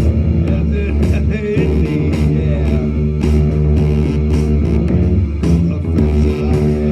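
Band playing a rock song at a sound check: electric guitar and bass guitar over a steady beat of sharp hits.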